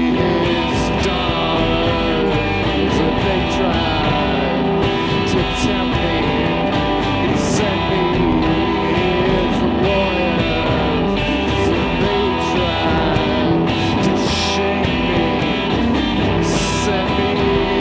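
Guitar music played live, a dense steady wash of sound with a wavering, sliding melody line running through it.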